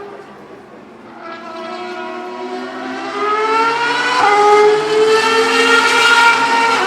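Ferrari race car engine at full throttle, rising in pitch and growing louder as it approaches, with a quick upshift about four seconds in before it climbs again.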